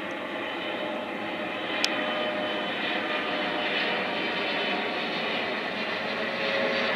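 Jet engines of a Boeing 777-300ER, its General Electric GE90s, at approach thrust as the airliner flies in low overhead with gear down: a steady roar that slowly grows louder. A brief sharp click about two seconds in.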